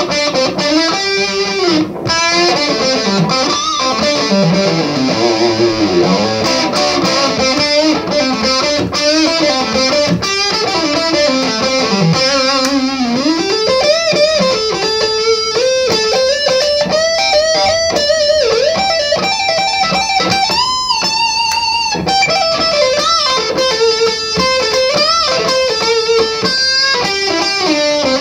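A 1959 reissue Les Paul electric guitar, Murphy-aged, playing a lead solo: single-note lines with string bends and vibrato. About three-quarters of the way through it holds one long high note with vibrato.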